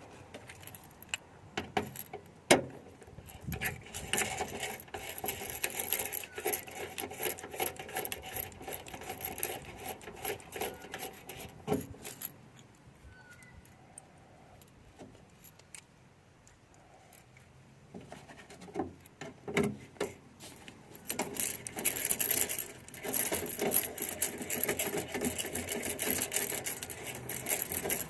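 Small metal and plastic parts clicking and rattling as tools and the car door's trim panel are handled and refitted. It goes quieter for a few seconds midway, then the clicking picks up again.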